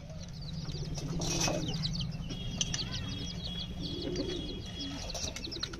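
Domestic pigeons cooing, with many short, high chirps of small birds throughout.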